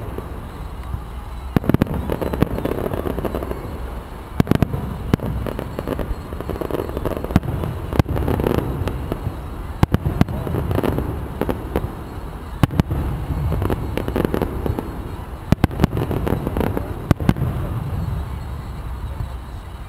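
Aerial fireworks shells bursting: sharp bangs about once a second, some in quick pairs, over a steady low rumble.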